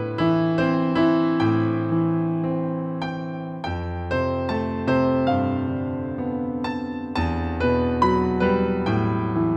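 Background piano music: a slow, gentle piece of single struck notes and chords that ring on.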